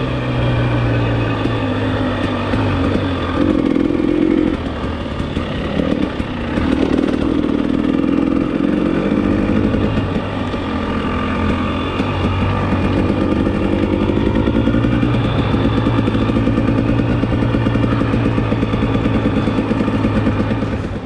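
KTM EXC enduro motorcycle engine running as the bike is ridden on a dirt track, the engine note rising and falling several times with the throttle.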